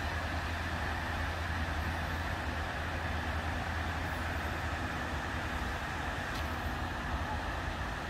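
Steady rush of a river waterfall cascading over wide rock ledges, an even noise with no let-up.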